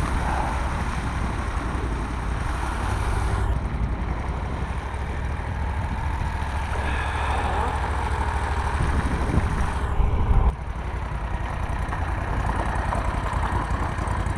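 Boat motor running steadily, with a brief surge and change in tone about ten seconds in.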